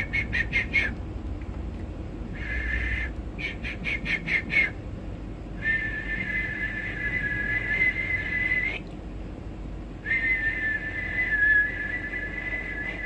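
A man whistling high through pursed lips in two pitches at once. First come quick runs of short chirps, then two long held notes of about three and four seconds, the lower pitch wavering slightly.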